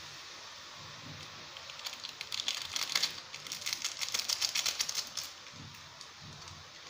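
Water boiling in an aluminium saucepan, a steady hiss throughout. From about two to five seconds in comes a dense crackly crinkling, as the Maggi masala sachet is shaken out over the pot.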